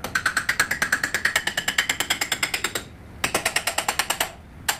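Hand hammer rapidly striking a steel mounting pin to drive it through the excavator arm and breaker bracket, metal on metal with a ringing note, about nine blows a second. A run of almost three seconds, a short pause, a second shorter run, then a couple of single blows near the end.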